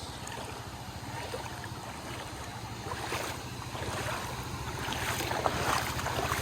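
Creek water splashing and running around someone wading over slick rocks, with wind rumbling on the microphone.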